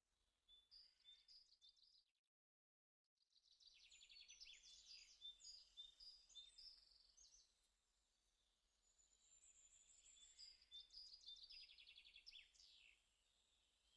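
Faint birds chirping and singing in quick trills and short repeated notes. The sound cuts out completely for about a second a little after two seconds in, then the birdsong resumes.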